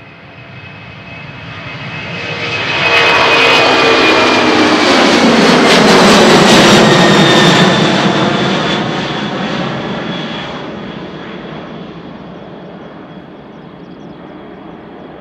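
Boeing 767-300's twin General Electric CF6-80C2 turbofans at takeoff thrust as the airliner lifts off and climbs past. The jet noise builds over the first few seconds, is loudest through the middle, then fades as it climbs away, its whining tones dropping in pitch as it passes.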